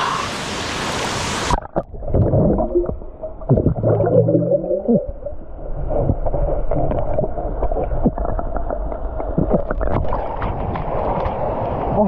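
Action camera dunked underwater about a second and a half in: the open-air rush of the waterfall cuts off abruptly and gives way to muffled underwater gurgling and bubbling, with scattered knocks and a few low hums.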